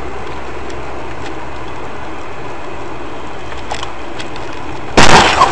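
Steady running noise of a car's engine and tyres heard from inside the vehicle, then about five seconds in a sudden, very loud noisy impact.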